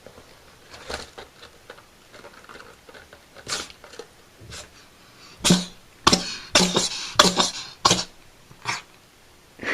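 A cat sneezing over and over: short, sharp sneezes, weak at first, then a quick run of louder ones about every half second in the second half.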